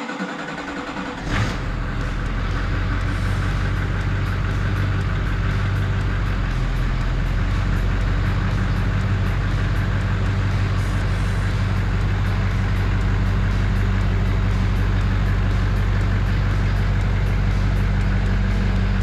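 Duramax V8 turbo-diesel swapped into a 1967 Chevy C10 starting up, catching about a second in and then idling steadily.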